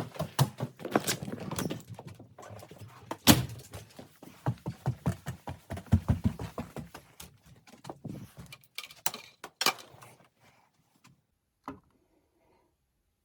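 Irregular knocks, thunks and clattering handling noises for about ten seconds, then one last knock near the end.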